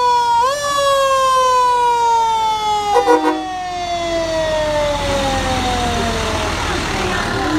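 Fire engine siren winding up in a quick step, then sliding slowly down in pitch for several seconds as it winds down. A short horn blast cuts in about three seconds in, and a heavy truck engine rumbles as it passes.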